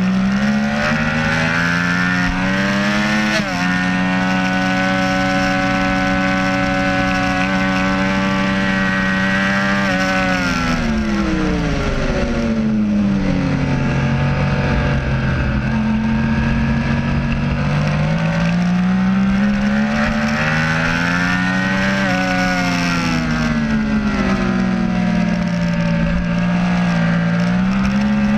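Sport motorcycle engine at high revs on a racetrack, with wind rushing past. The pitch climbs, drops abruptly at an upshift about three seconds in, holds high, falls away as the bike slows for a corner, then climbs again under acceleration.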